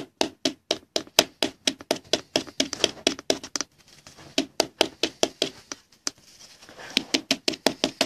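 Rigid plastic trading-card holder tapped rapidly against a tabletop, about five taps a second with two short breaks, to settle a card down into it and protect its corners.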